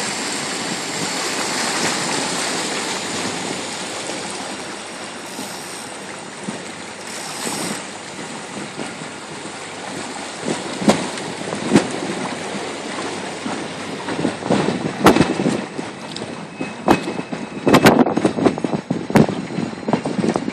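Water rushing and splashing past a moving boat, with wind on the microphone. From about halfway through, irregular sharp knocks and thumps come in, growing thicker toward the end.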